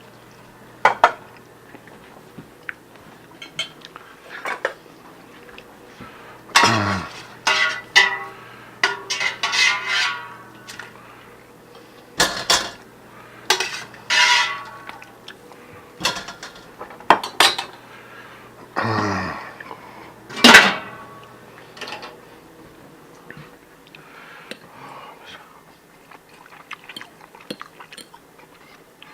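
Cutlery clinking and scraping on plates and dishes while eating a meal, in scattered clatters that are busiest in the first two-thirds and thin out near the end.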